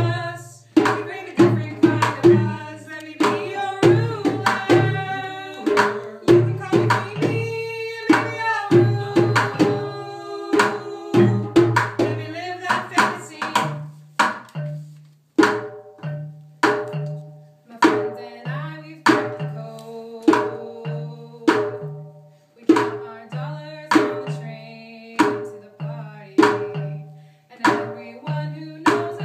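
Classroom percussion ensemble playing a song. A bass xylophone struck with mallets gives low notes in a repeating pattern, about one a second in the second half. Sharp hits on a plastic bucket used as a drum and voices singing go over it.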